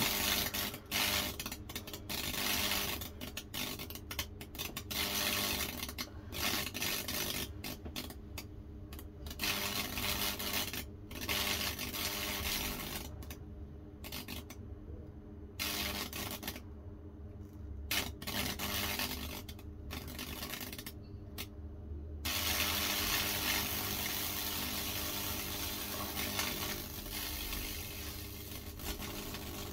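High-voltage fractal (Lichtenberg) burning on a damp English cedar board: the current arcing and burning through the wet wood between two probes, crackling in fits for about the first twenty seconds and then settling into a continuous sizzle as the burn carries on steadily, over a steady electrical hum.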